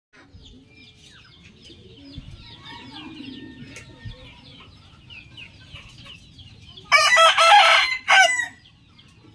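A rooster crows once, loudly, about seven seconds in: one crow lasting about a second and a half with a short break near its end. Before it there is only faint, busy high chirping.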